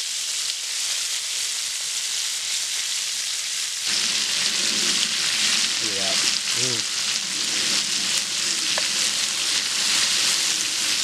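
Cubes of beef roast sizzling as they brown in hot bacon grease in a cast iron skillet. The sizzle grows louder about four seconds in.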